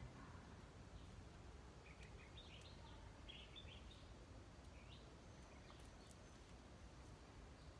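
Near silence: quiet outdoor background noise with a few faint, short bird chirps about two to five seconds in.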